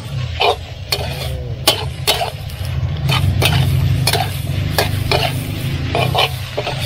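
Stir-frying in a wok: a metal spatula clanking and scraping against the pan a few times a second at an irregular pace, with food sizzling, over a steady low hum. The dish is pickled garlic fried with eggs.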